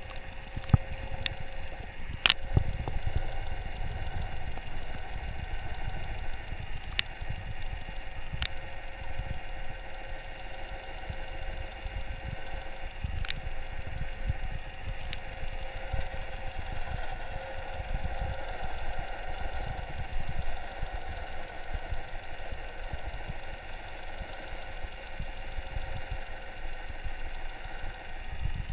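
Underwater sound picked up by a submerged camera: low, fluttering rumble of moving water with a steady faint hum, broken by a few sharp clicks.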